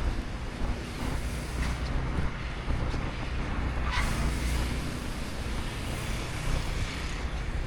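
Steady low rumble of city street traffic, with a short sharp click about four seconds in.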